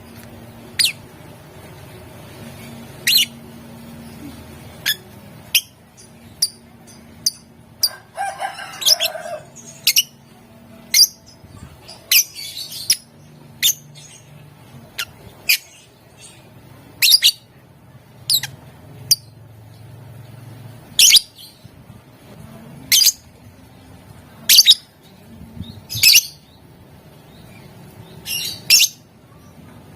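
Lovebird giving short, sharp, high chirps at irregular intervals, with one longer, rougher call about eight seconds in, over a faint low hum.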